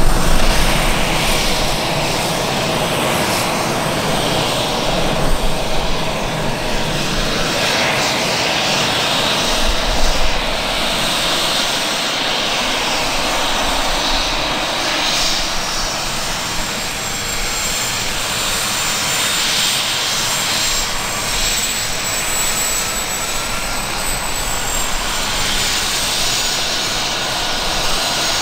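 AgustaWestland AW139 twin-turbine helicopter running steadily, a high turbine whine over broad engine and rotor noise.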